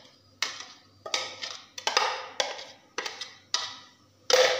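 A green plastic chopper bowl being knocked against a steel bowl to empty crushed ginger and green chilli out of it: about eight sharp knocks, roughly two a second, the loudest near the end.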